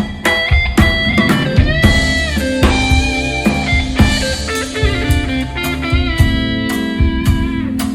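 A live rock band plays an instrumental break: a lead electric guitar with bending notes over a steady drum-kit beat and Hammond organ. Sustained low organ chords come in about six seconds in.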